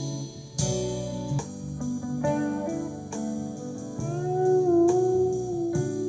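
Instrumental guitar passage of a slow ballad: plucked notes about once a second, with a long sliding, wavering note held in the second half.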